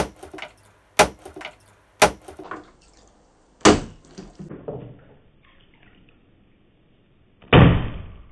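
A plastic water bottle landing upright on a wooden table with a sharp knock. A few more short knocks follow about a second apart, then a louder rushing burst near the end.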